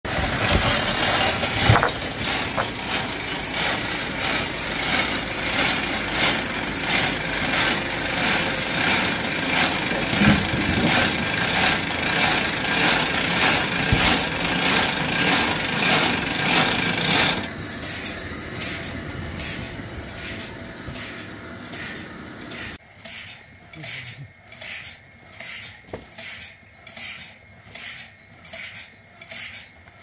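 A 1938-model sawmill cutting a log into boards, the saw running through the wood with a steady rhythmic stroke. About seventeen seconds in the cut ends and the sound drops. Near the end come regular knocks, a little over one a second.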